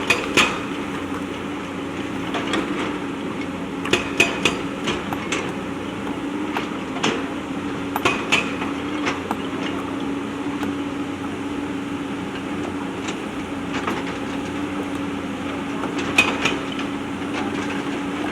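JCB backhoe loader's diesel engine running steadily under load, with sharp metallic clanks of the bucket striking and scraping stones, several in quick clusters.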